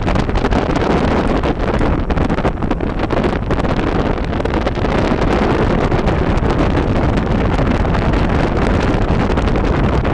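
Wind buffeting the microphone at the open window of a fast-moving van, over the van's engine and road noise. Loud and steady.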